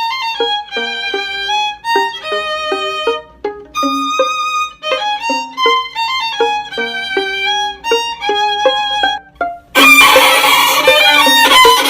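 Violin playing a quick melody of short, separate notes, with a brief pause about three and a half seconds in. About ten seconds in, a loud, harsh, noisy sound takes over until near the end.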